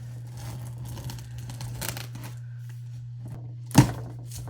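A cardboard box being torn open and its packing rustled, with one sharp, loud snap about three-quarters of the way through. A steady low hum runs underneath.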